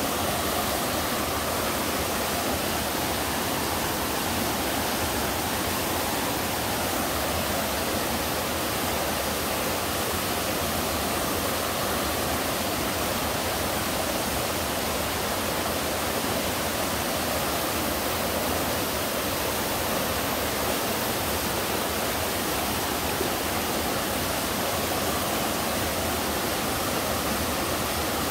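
Waterfall pouring into a mountain stream pool: a steady, unbroken rush of falling water.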